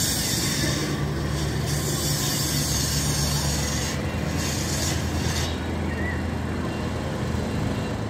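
Steady low diesel-engine hum from heavy mobile cranes lifting steel coaster track. Over it runs a loud rushing, hissing noise that swells twice, about a second in and again around four to five seconds, then eases off.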